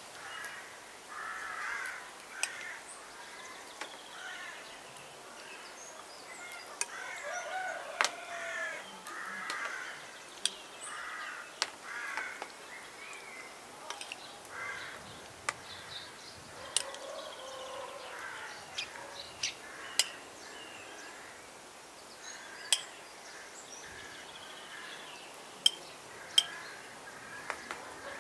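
Birds calling on and off, in short, bending calls, with scattered sharp clicks throughout.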